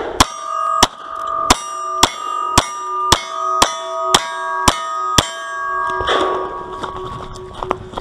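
Ten revolver shots in quick succession, about two a second, each striking a steel target that rings on after the hit.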